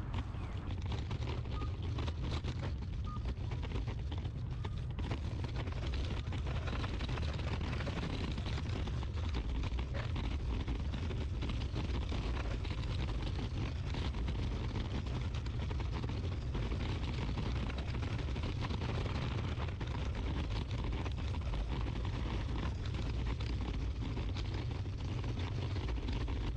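Steady outdoor background noise with a heavy low rumble and a constant hiss, unchanging throughout.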